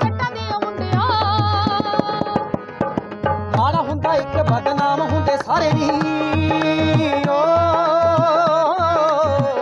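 Harmonium playing a melody over a steady dholak hand-drum rhythm: an instrumental passage of a Punjabi folk song.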